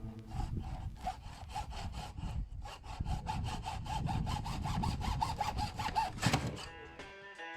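Hand saw cutting through PVC pipe with quick, even back-and-forth strokes that stop about six seconds in, the last stroke the loudest as the cut finishes.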